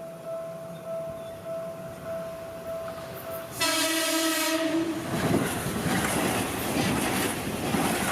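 A level-crossing warning bell rings in steady pulses, about two a second. About three and a half seconds in, an electric commuter train sounds its horn for about a second, then passes the crossing with loud wheel and rail noise.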